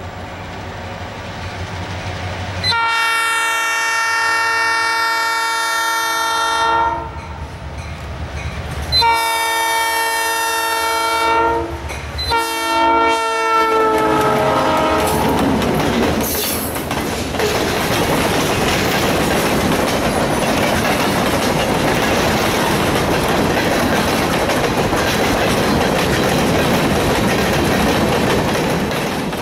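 Diesel freight locomotive blowing its chime horn in the grade-crossing pattern: two long blasts, a short one, and a final long one that drops in pitch as the engine passes. The train then rolls by with a steady rumble of wheels on the rails.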